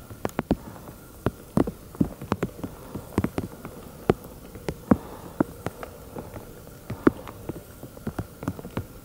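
Scattered hailstones striking rock, sharp irregular ticks a few times a second, over a faint steady hum.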